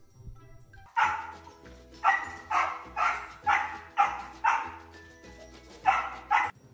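Dog barking: a single bark about a second in, then six barks at about two a second, a pause, and two more near the end.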